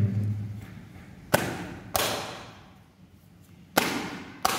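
Tarot cards snapping as a deck is shuffled by hand: four sharp card slaps in two pairs, about a second and a half in and again near the end, each trailing off in a long echo.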